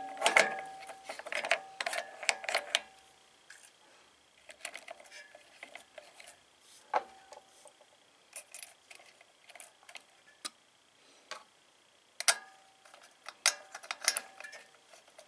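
Small metal parts of a Briggs & Stratton starter drive clicking and clinking as the spring and retaining cap are worked onto the pinion gear on the starter shaft by hand. A quick run of clicks comes in the first few seconds, then scattered light taps, then another run of clicks near the end.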